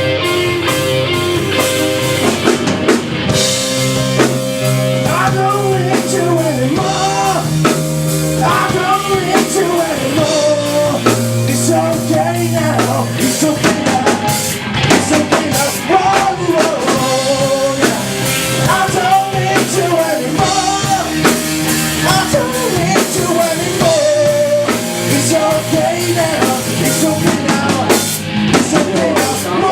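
Live rock band playing a song: drum kit, guitar, bass and keyboard, with a vocalist singing over them from about four seconds in.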